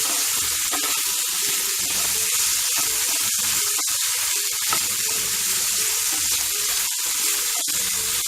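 Goat liver frying in hot oil in a pan with onions and spices: a steady sizzle.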